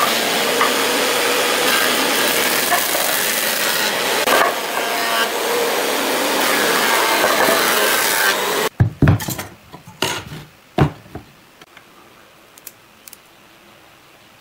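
Thickness planer running as it planes a pine board, a loud steady noise that cuts off abruptly after about eight and a half seconds. A few loud knocks follow, then only faint ticks.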